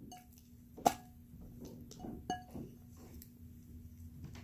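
A few light clinks and taps of a utensil against a glass container while slime is being worked, the sharpest clink about a second in and ringing briefly, with a second clink a little past two seconds and soft handling sounds between.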